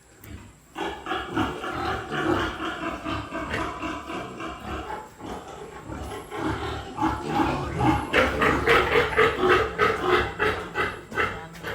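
Piglets squealing loudly and without a break, starting about a second in, with rapid pulsed screams in the last few seconds. These are distress squeals of piglets being handled at weaning.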